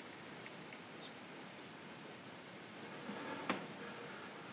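Quiet open-country ambience: a steady faint hiss with a few faint bird chirps, and a single soft click about three and a half seconds in.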